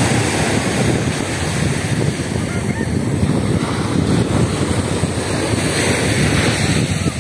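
Sea surf breaking and washing on a beach, a steady loud rush, with wind buffeting the microphone.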